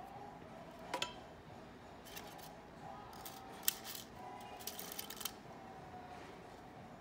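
Light clicks and taps of small hand tools and glass being handled on a worktable: one click about a second in, a few scattered taps, then a quick run of clicks near the end.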